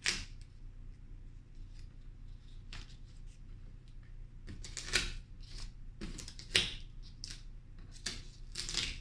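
Paper cut-outs being handled and placed on an easel board: scattered short rustles and taps, the sharpest about five seconds in, again a second and a half later, and once more near the end.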